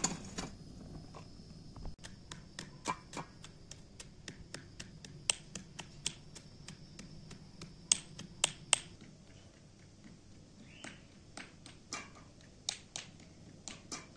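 Walnut kernels being crushed in a small stone mortar with a stone pestle: irregular sharp taps and knocks of the pestle, a few louder ones around the middle and near the end. A plate clinks down onto a metal tray at the very start.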